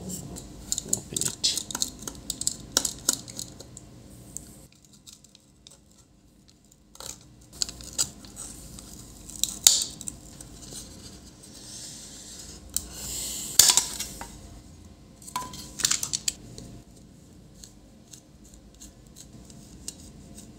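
Scattered sharp clicks and scrapes of a utility-knife blade prying apart a SATA SSD's casing, with a longer scrape lasting about a second near the middle and a quiet gap shortly before.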